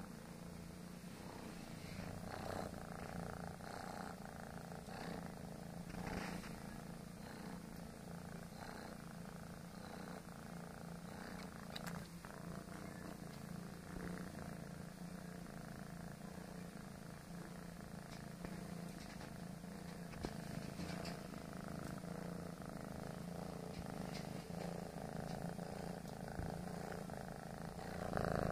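Tabby kitten purring steadily, heard close up against its fur, with a few soft rustles.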